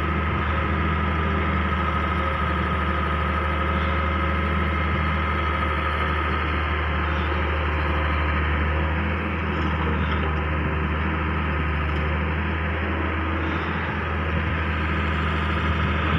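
Heavy diesel machinery engine running steadily at an even pitch, a deep drone with a steady high whine over it.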